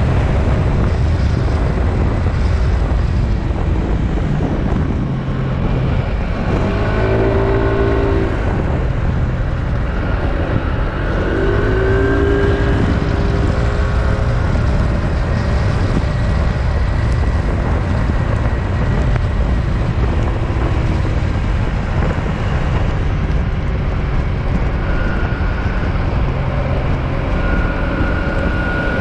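PGO Tigra 150 scooter running at road speed, with heavy wind rush on the handlebar-mounted microphone. The engine note rises and falls a few times.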